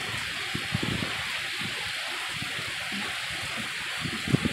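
Heavy tropical-storm rain falling steadily, an even hiss, with scattered soft thumps close by, the loudest about four seconds in.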